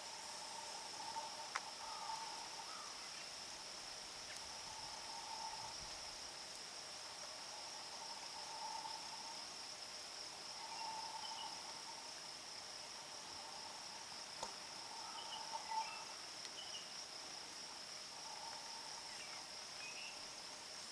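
Outdoor summer ambience: insects keep up a steady high-pitched drone, while some animal gives a lower call of about a second, repeated every two to three seconds, with a few faint bird chirps in between.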